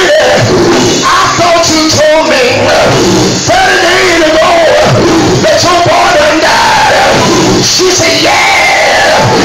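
Loud live gospel music in a church: a lead voice singing over the band, with the congregation joining in and calling out.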